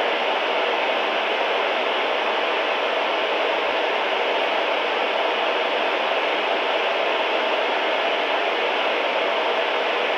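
Steady hiss of radio static from a weather radio receiver whose station has gone off the air: the transmitter has dropped out, so only noise comes through.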